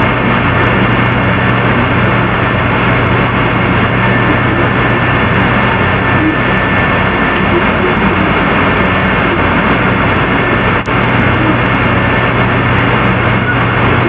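Steady, loud droning noise with a constant low hum and a thin high steady tone, unchanging, with one brief click about eleven seconds in.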